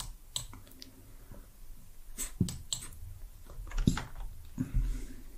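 Scattered computer mouse and keyboard clicks at an irregular pace, a dozen or so sharp single clicks, made while a value in the 3D software is being edited.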